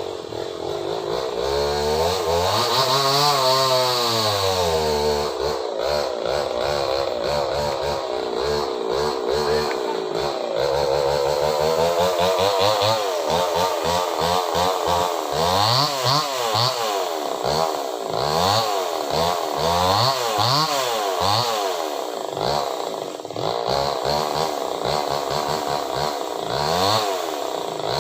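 Small chainsaw cutting into a very large tree trunk, its engine pitch rising and falling over and over as the chain bites into the wood and frees up again, with quicker rises and falls from about halfway through.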